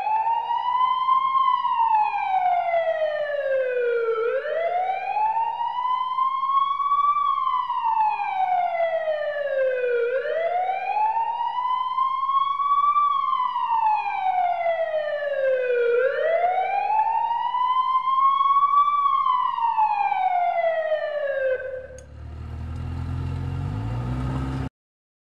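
Emergency vehicle siren in a slow wail, its pitch rising and falling four times about six seconds apart. Near the end it gives way to a short, low, rough blast that cuts off suddenly.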